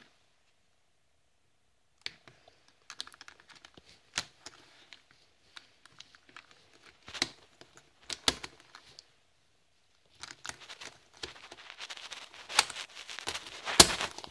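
Small hard plastic clicks and snaps from a 3x3 speed cube's pieces being worked out of and pressed back into the cube by hand. They start about two seconds in, are scattered at first and come thick and fast near the end, with one sharp snap just before it finishes.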